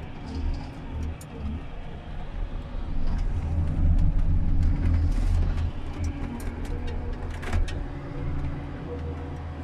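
Komatsu 931.1 harvester's diesel engine and crane hydraulics running under load, heard inside the cab. The engine note swells about three seconds in as the crane swings the harvester head, and a few sharp clicks come about seven seconds in.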